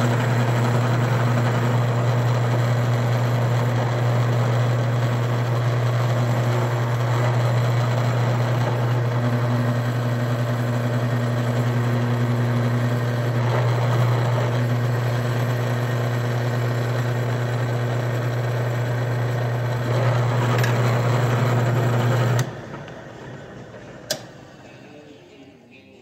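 Drill press motor running steadily, spinning a roll crimp tool against the mouth of a 12-gauge shotshell to roll-crimp it over a rifled Foster slug. The motor cuts off about 22 seconds in and winds down, followed by a single click.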